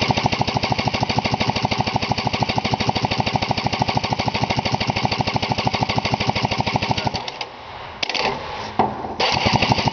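The two-stroke twin engine of a 1996 Polaris SLT 700 being cranked over for a compression test on its PTO-side cylinder, a fast, even, pulsing churn as the gauge pressure builds. The cranking stops about seven seconds in, and two shorter bursts of noise follow near the end.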